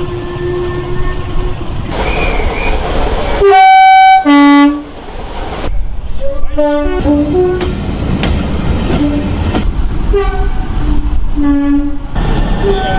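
Two-tone train horns sounding in a run of short clips, each a higher note followed by a lower one, over the rumble and clatter of passing trains. The loudest is a very close blast, high then low, about four seconds in. Another horn is held on one note near the end.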